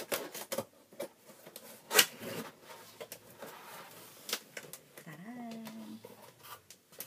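Cardboard box being cut open and its flaps pulled back: scraping, rustling and knocking of cardboard, with one sharp knock about two seconds in. A brief pitched hum sounds about five seconds in.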